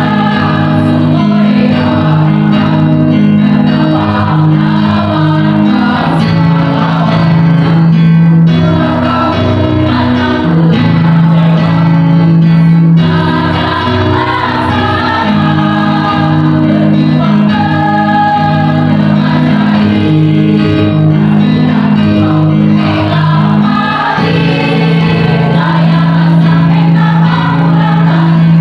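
Mixed choir of women and men singing in parts, with electronic keyboard accompaniment holding long sustained low notes.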